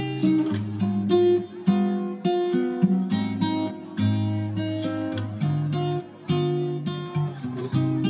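Background music: an acoustic guitar picking a melody of single notes and chords, each note fading before the next.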